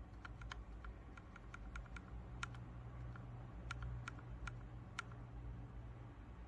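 Faint typing on a mechanical keyboard fitted with ABS keycaps: separate key clicks, a few a second, irregularly spaced, over a faint low hum.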